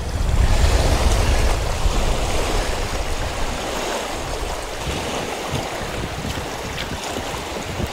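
Small wind-driven waves washing onto a rocky lakeshore, with gusty wind buffeting the microphone as a low rumble.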